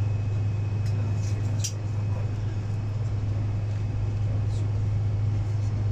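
Steady low drone inside the cabin of a Boeing 747-400 taxiing at low power, with a few faint clicks in the first two seconds.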